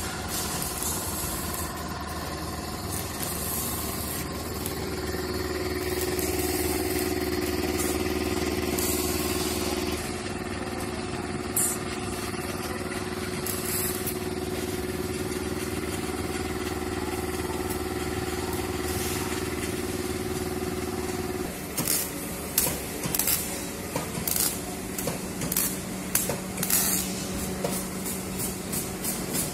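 Engine of an engine-coupled generator set running steadily. About twenty seconds in, its note drops lower, and a string of sharp clicks and knocks sounds over it.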